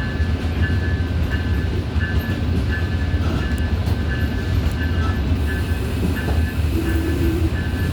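Tri-Rail commuter train running, heard from on board: a steady low rumble, with a high ringing tone repeating about twice a second over it.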